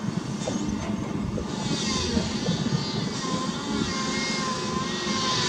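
Heavy diesel earthmoving machinery, an excavator and dump trucks, running steadily, with a faint whine that rises slightly in pitch in the second half.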